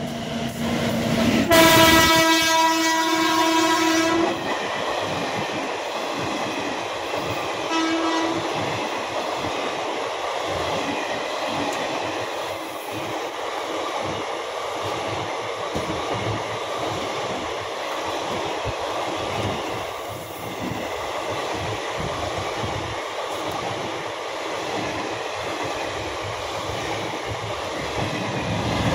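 WAG-9HC electric locomotive sounding its horn in one long blast about a second and a half in, and a short toot a few seconds later, as it passes at speed. After that, the steady rush and clatter of its freight wagons going by.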